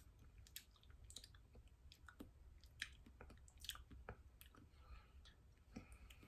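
Faint chewing of a spoonful of bean chili: scattered soft mouth clicks and smacks at irregular intervals.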